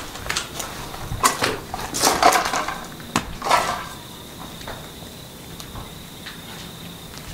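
Footsteps scuffing on a gritty concrete floor, a dozen or so short knocks in the first four seconds. After that a steady high cricket trill is left alone.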